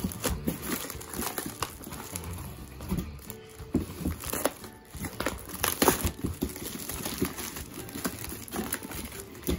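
Clear plastic wrapping crinkling and crackling in irregular bursts as hands pull it off a cardboard model-kit box.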